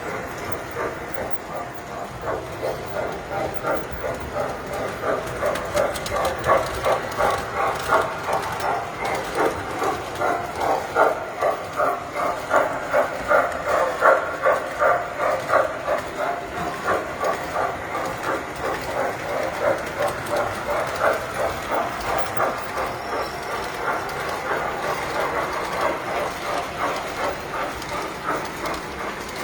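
Tinplate model train running on its track, a rhythmic clatter of about two beats a second that grows louder toward the middle as it comes near and then eases off.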